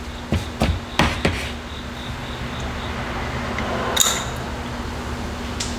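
Snap ring being worked into its groove in a motorcycle fork tube: a run of light metal taps and clicks, then a sharper click about four seconds in and another near the end.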